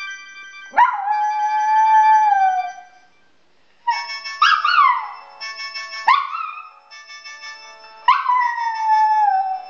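A Chihuahua howling along to music: a long howl about a second in that slides slowly down in pitch, shorter falling howls in the middle, and another long falling howl near the end, over a melody of steady held notes.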